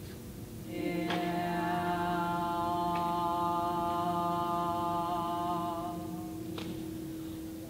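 A voice holding one long, steady sung note for about six seconds, starting about a second in and fading slightly near the end.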